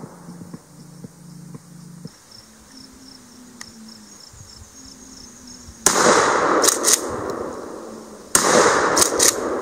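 A shotgun fired twice, about two and a half seconds apart, each loud shot followed within a second by two sharper cracks. Before the shots, faint insect chirping.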